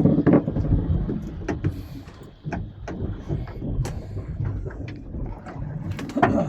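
Low rumble of a small fishing boat at sea, with scattered knocks and clicks from gear being handled on deck. The louder knocks come at the start and near the end.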